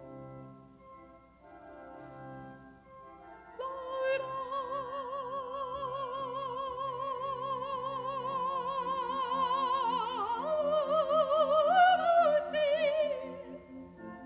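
A woman soloist singing in a classical style with a wide vibrato. She comes in about three and a half seconds in on long held notes that step higher towards the end, over soft sustained instrumental accompaniment, and her voice fades out shortly before the end.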